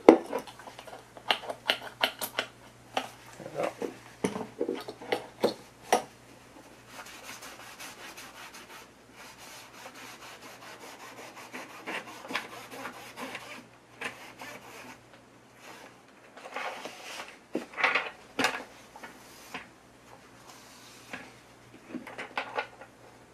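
Alcohol-dampened lint-free cloth rubbing back and forth over the gold edge-connector contacts of a vintage IMSAI 8080 front-panel circuit board, in irregular strokes with scattered light clicks: the contacts are being wiped clean of eraser residue.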